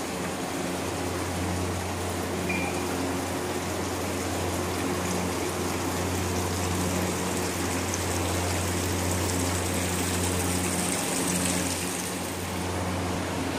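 Steady rush of running water over a constant low mechanical hum.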